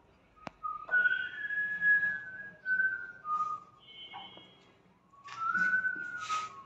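A person whistling a slow tune, clear single notes stepping up and down and held for a moment each. A sharp click sounds about half a second in.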